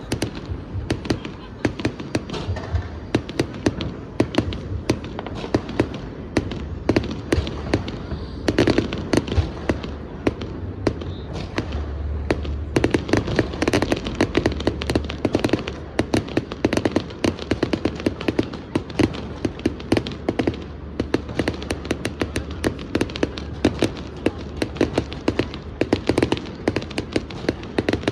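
Fireworks going off in quick succession: many sharp bangs and crackles with a low rumble, over a murmur of crowd voices.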